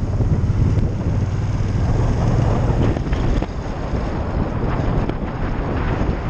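Motorcycle riding along, with wind buffeting the microphone over the engine's low drone. The drone eases a little about three seconds in.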